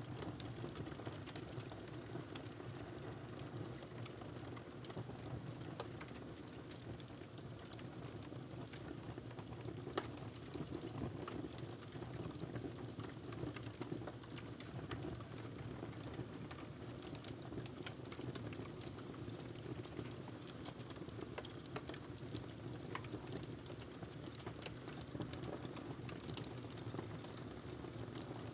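Wood fire crackling in a fireplace: a steady low rush dotted with many small pops and snaps, one louder pop about ten seconds in.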